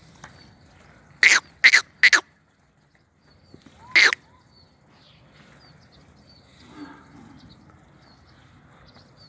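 Nili-Ravi buffalo calves snorting close by: three short, sharp snorts in quick succession about a second in, then one more about four seconds in.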